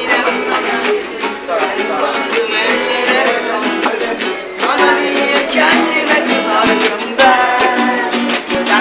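A small band playing a song, with a singing voice over strummed guitar and light percussion.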